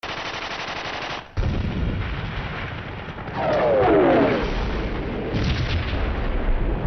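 Battle sounds of gunfire and explosions. A fast, even rattle cuts off after about a second, then heavy rumbling blasts follow. About three and a half seconds in, a whistle falls in pitch, with sharp cracks soon after.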